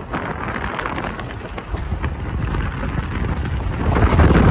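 Off-road jeep jolting over a rough track: repeated knocks and rattles from the body over a low engine and tyre rumble, getting louder near the end.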